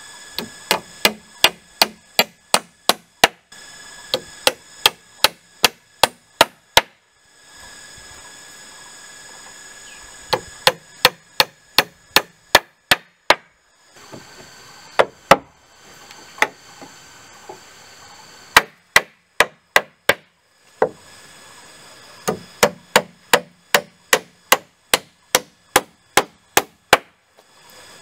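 Hammer driving nails into a wooden beam, in runs of quick, sharp strikes about three a second with short pauses between runs.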